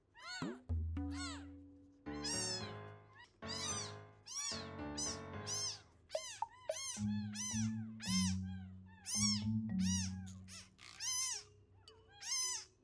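Newborn kitten mewing over and over in short, high cries that rise and fall in pitch, more than one a second.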